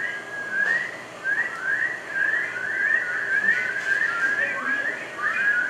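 A group of people whistling short, rising notes, several a second and overlapping, in imitation of a chorus of spring peepers.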